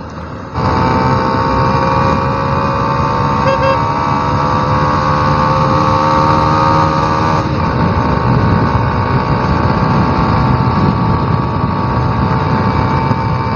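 Motorcycle engine running while riding, with broad road and wind noise. It comes in abruptly about half a second in, its pitch creeping slightly upward over the first several seconds, then holds steady.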